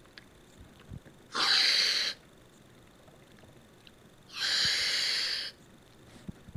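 Reddi Wip aerosol whipped-cream can spraying as the macaque presses the nozzle with her mouth: two steady hisses, the second a little longer.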